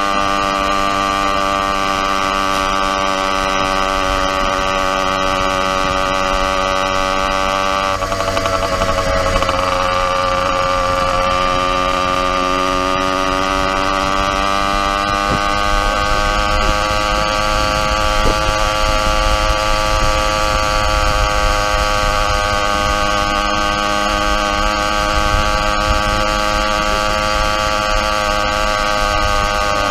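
A YD100 motorized-bicycle engine running under way at a steady cruise, a constant, evenly pitched drone. About eight seconds in its pitch dips, then climbs back and holds steady.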